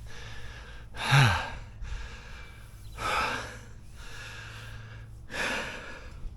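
A man breathing hard and heavily: three loud breaths about two seconds apart, the first with a short falling groan. The uploader takes this winded, wheezy breathing as a sign of the near-total coronary artery blockage later fixed by bypass surgery.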